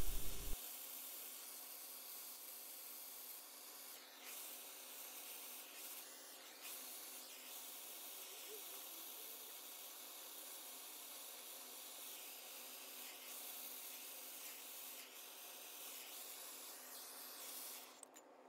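A plumber's torch hisses steadily as its blue flame heats a soldered copper pipe joint, then cuts off near the end.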